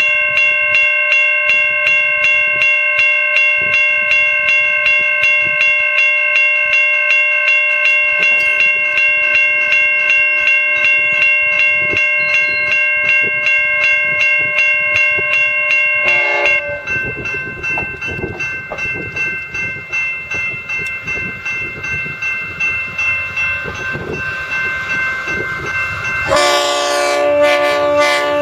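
Level crossing warning bell ringing rapidly at a steady pitch, turning quieter about two-thirds of the way through. Near the end a V/Line diesel locomotive sounds its horn loudly as it reaches the crossing.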